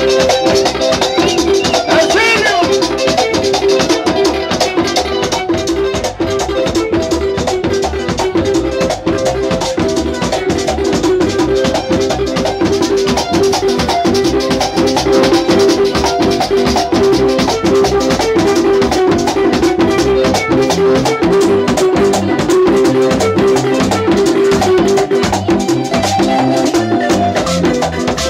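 Latin dance band music without singing: a fast, steady beat of drums and rattling scraped or shaken percussion under sustained melodic notes.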